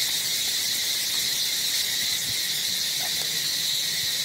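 Steady chorus of insects buzzing in the forest: a constant high-pitched drone that does not let up.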